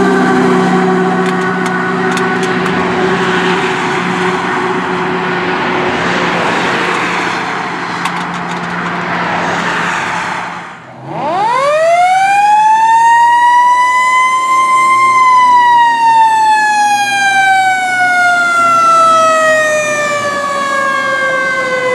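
A 1996 Pierce Lance fire engine passes and pulls away on a run, with engine and road noise. About eleven seconds in, its mechanical siren winds up in one smooth rising whine over about four seconds, then slowly coasts down in pitch.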